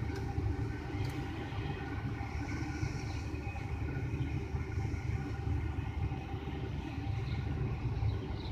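Iveco truck's diesel engine running steadily at idle after starting, a low, even rumble from its upright exhaust stack.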